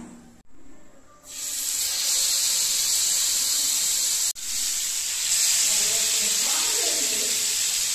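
Marinated catla fish steaks sizzling in hot oil in a non-stick frying pan. The sizzle starts about a second in as the fish goes into the oil and then holds steady, with one brief dropout just after the middle.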